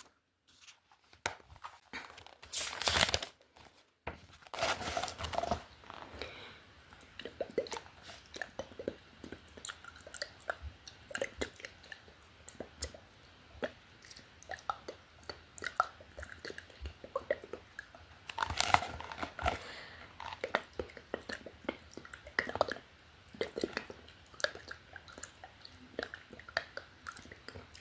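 Close-miked ASMR mouth sounds: a dense run of short, wet lip and tongue clicks and smacks from unintelligible whispering. Two longer breathy bursts stand out, one a few seconds in and one about two-thirds of the way through.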